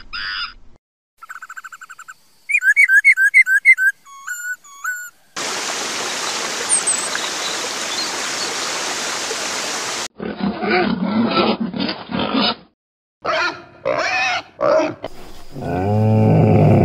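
A run of short, abruptly cut farm-animal recordings: quick high-pitched chirping calls, then about five seconds of steady hiss, then grunting calls and a loud, deep low call near the end.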